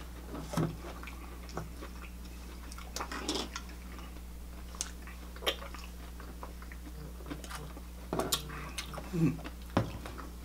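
Eating sounds close to the microphone: scattered wet mouth smacks and bites from chewing food, a few short clicks every couple of seconds, over a steady low hum.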